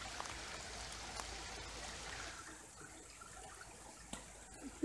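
Small stream (a burn) running, a steady watery hiss that grows softer about two seconds in, with a few faint clicks.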